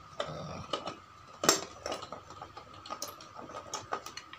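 Scattered clicks and knocks of a hair clipper's plastic casing and parts being handled and fitted back together, with one sharper click about one and a half seconds in.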